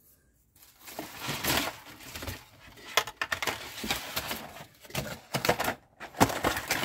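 Thin clear plastic blister packaging crackling and clicking as it is handled, with a model car's fender trim piece being laid into it, starting about half a second in.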